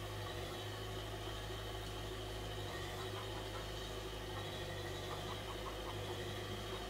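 Milk bun dough balls sizzling gently as they deep-fry in oil on a low gas flame, with a few faint pops, over a steady low hum.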